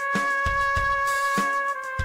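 Background music: sustained held notes over a drum beat.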